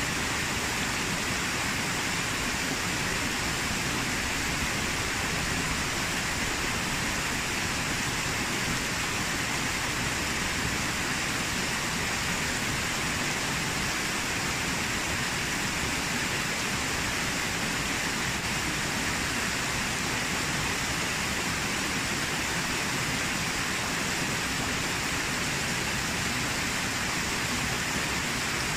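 Steady rush of a small rocky waterfall and stream, water splashing and cascading over the rocks.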